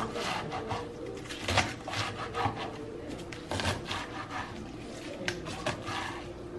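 Chef's knife chopping kale on a wooden cutting board: rapid, irregular strokes, the blade crunching through the leaves and knocking on the board, with some scraping.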